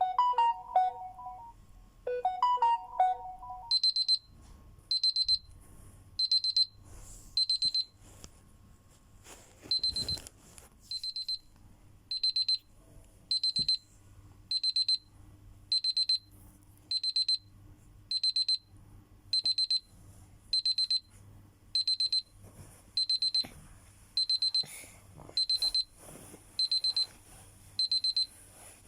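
A short melodic phone tone plays twice, then a smartphone's alarm starts beeping: clusters of rapid, high-pitched beeps repeating about once a second.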